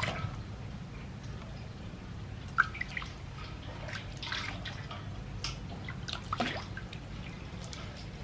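Water splashing and dripping in a stainless steel basin as a baby macaque is washed by hand, with scattered splashes and drips, the clearest about two and a half seconds in and between four and six and a half seconds, over a steady low hum.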